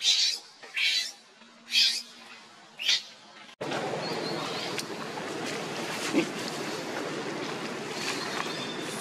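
Baby macaque screaming in short, high-pitched cries, one every half second to second, while its mother pulls at its hair. About three and a half seconds in, this cuts to a steady outdoor background hiss.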